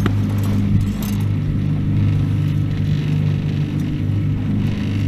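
Boat's outboard motor running steadily with an even hum, with a few light clicks and knocks near the start.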